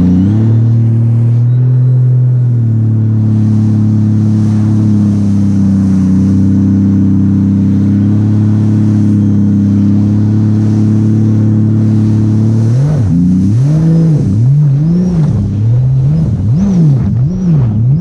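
Jet ski engine running steadily at speed with a constant drone. From about 13 seconds in, the engine pitch surges up and down repeatedly, a little under twice a second.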